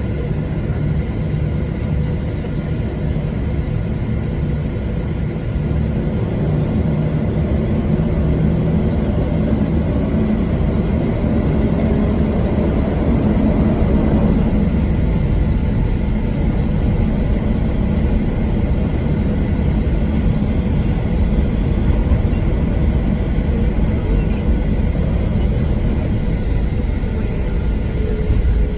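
Steady rumble of a Boeing 737-700 heard from inside the cabin: the CFM56-7B jet engines and airflow running, with a low hum through it. It grows a little louder from about six seconds in.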